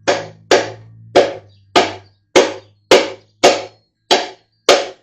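Nine steady hammer blows, about two a second, driving a piston and connecting rod out of the cylinder bore of a small-block Chevy 350. Each blow is sharp with a short ring.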